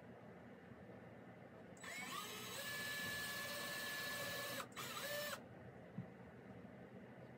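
Cordless power drill boring a hole in a wooden board: the motor winds up in pitch, runs steadily for about three seconds, stops, then gives one short second burst.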